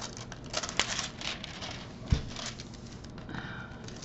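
Hands handling a diamond painting canvas and its clear plastic cover: small clicks and rustles, thickest in the first second, with one thump about two seconds in.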